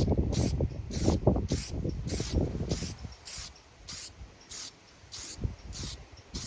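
Aerosol spray paint hissing in short, evenly spaced bursts, about one and a half a second, with wind buffeting the microphone, heaviest in the first half.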